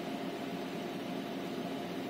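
Renault Scénic II's air conditioning running, its blower fan pushing a steady rush of air through the dashboard vent with a constant low hum.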